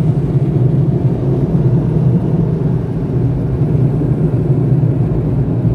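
Car wash dryer blowers running, heard from inside the car as a loud, steady low rumble while they blow the rinse water off the glass.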